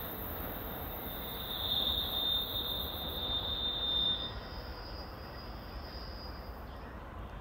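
Steel wheels of a receding New Jersey Transit passenger train squealing on a curve: a high steady squeal, loudest a couple of seconds in, shifting higher and fainter after about four seconds, over the train's low rumble.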